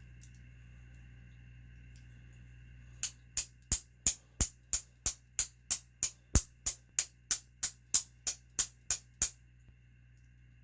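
Quick, steady series of about nineteen sharp taps, roughly three a second, starting about three seconds in and stopping near the end: tapping the stuck wrist pin out of a nitro engine's piston.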